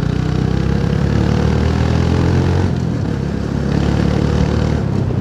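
Motorcycle engine running steadily while riding along, with a rushing haze of wind and road noise over it.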